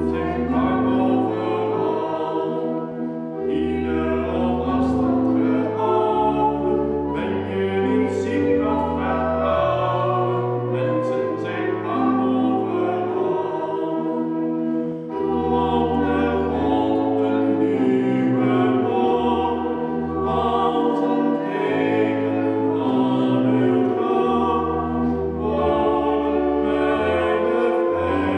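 A man and a woman singing a Dutch song together, accompanied by sustained, steadily held chords typical of a pipe organ, in the reverberant space of a brick church.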